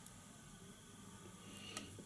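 Near silence: faint room hiss, with one small tick near the end.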